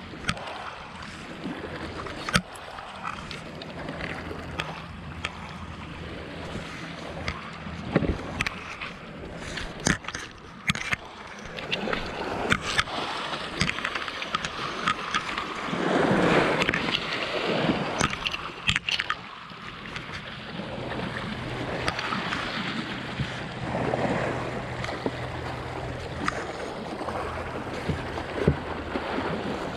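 Sea water washing and splashing against a rocky shoreline, swelling twice with larger surges, about halfway through and again near the end. Scattered sharp clicks and knocks sound over it, and a faint low steady hum runs underneath.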